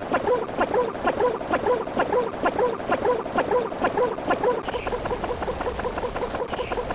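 An animal-like squeaky call repeating about twice a second, each call bending in pitch, then turning into a quicker, fainter run of short calls about four and a half seconds in.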